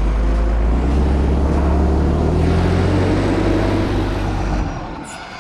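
Log skidder's diesel engine running hard under load, its pitch climbing over the first few seconds, then easing off sharply near the end.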